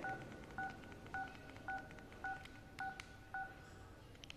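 Jio Bharat keypad phone's key beeps: faint short two-note beeps, a high note then one an octave lower, repeating about twice a second as the navigation key is pressed, then stopping near the end.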